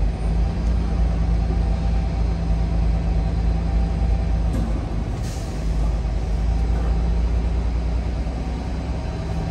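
Semi truck's diesel engine running at low speed as the truck manoeuvres to park, a steady low drone. A short hiss of air comes about halfway through.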